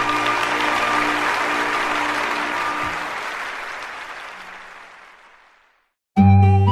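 Audience applauding at the end of a live song recording, with the last held notes still sounding under it, fading out gradually over about six seconds. A new piece of music starts abruptly near the end.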